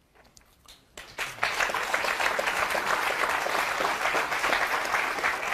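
Studio audience applause that breaks out about a second in, after a brief hush, and holds steady as dense clapping.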